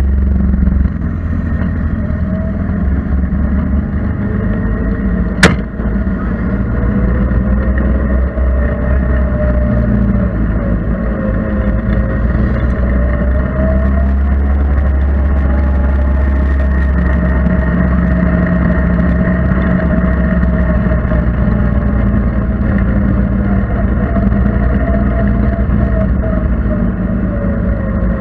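Engine of the off-road vehicle carrying the camera, running steadily at low riding speed, its pitch drifting gently up and down as the throttle changes. A single sharp knock about five seconds in.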